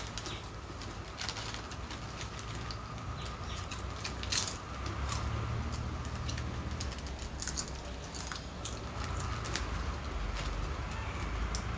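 Foil snack packets crinkling and rustling as hands dig into them for chips, with scattered crunches of potato chips being bitten and chewed, over a low steady hum.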